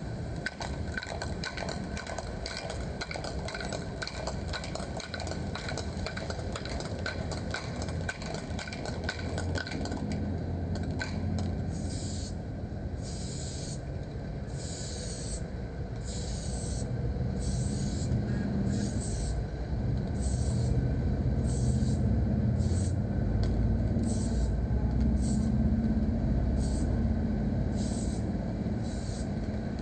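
Aerosol spray paint can, first rattled with rapid clicking for about ten seconds, then sprayed in short hissing bursts about once a second. A steady low engine rumble runs underneath.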